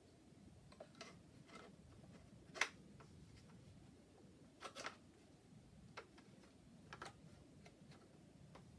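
Scattered light clicks and taps as hands fit a metal bracket and hose clamp to a plastic chainsaw body, the sharpest about two and a half seconds in, over near-silent room tone.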